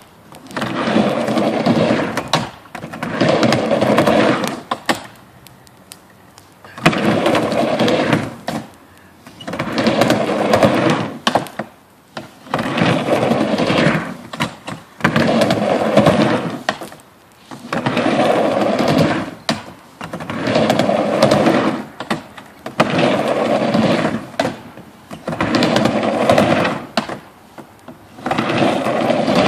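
Skateboard wheels rolling back and forth across a wooden half-pipe ramp: a loud rumble on each pass, dropping away briefly as the board turns at each end, about one pass every two seconds, with a longer pause about five seconds in.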